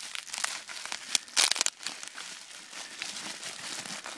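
Plastic bubble wrap crinkling and rustling as it is pulled open by hand, with a brief louder burst of crackles about a second and a half in.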